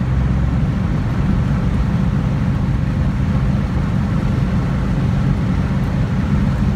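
A 1969 Pontiac GTO's V8 engine running steadily at speed with wind and tyre noise, heard from inside the cabin.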